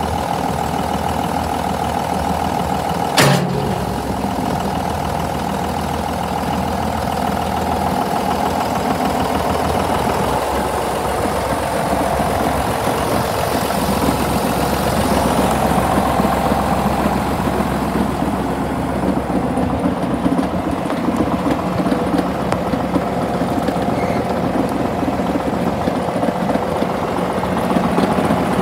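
The diesel engine of a 1997 John Deere 7610 tractor idling steadily, with a single sharp clunk about three seconds in.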